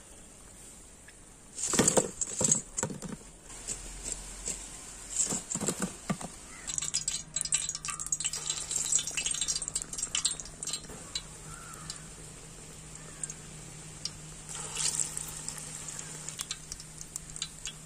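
A metal ladle clatters and clinks against the frying pan in a few quick bursts as fried uzhunnu vadas are scooped out of the oil. After that, hot oil crackles and sizzles steadily as fresh vada batter fries, with a louder flurry near the end.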